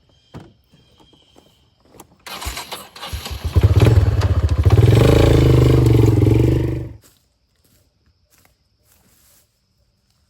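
An engine cranks and catches, then runs loudly for about three seconds before cutting off abruptly.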